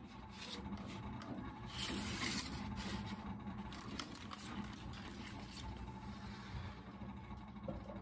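Dirty pleated air filters scraping and rubbing as they are slid along the metal filter rack of a Trane fan coil unit. The scraping is loudest about two seconds in, over a steady low hum.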